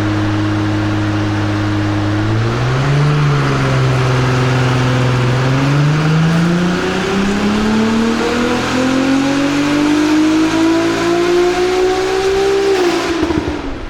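Ferrari 296 GTS twin-turbo V6 with a full Capristo exhaust and catted downpipes, making a full-throttle pull on a hub dyno. It holds steady revs for about two seconds, then the pitch climbs steadily for about ten seconds. Near the end the throttle is cut and the revs fall away.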